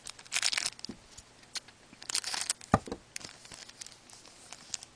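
Crinkling and tearing of a foil trading-card pack wrapper being opened, in two main bursts with scattered small clicks of cards being handled.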